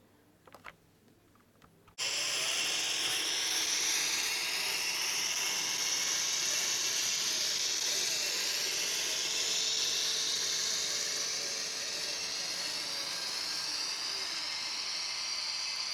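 Bemo model railway train running on the layout track: a steady hissing rush with slowly sweeping tones that starts suddenly about two seconds in. A few faint clicks come before it.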